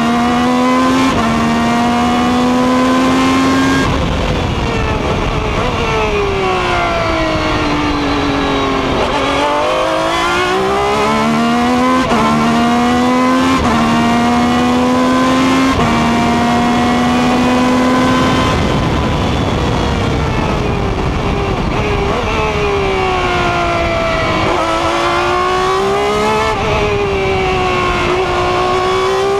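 Ferrari 333 SP's 4.0-litre V12 heard from on board at racing speed: it holds high revs with quick gear changes, its pitch falls as the car brakes and downshifts, and it sweeps back up as the car powers out of corners. A steady rush of wind and road noise runs under the engine.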